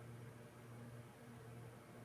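Near silence: room tone with a faint, steady low hum and light hiss.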